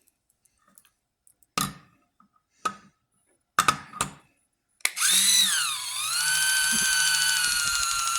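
A few knocks as a can and an automatic electric can opener are set up, then the opener's small motor starts about five seconds in and runs with a steady whine, its pitch dipping briefly before settling as it cuts around the lid.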